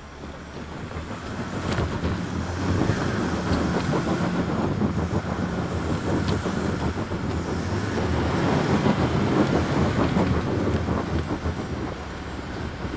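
Land Rover Defender SUV crawling up a loose rocky trail, its engine working under load and its tyres crunching over rocks and gravel, growing louder over the first few seconds as it approaches.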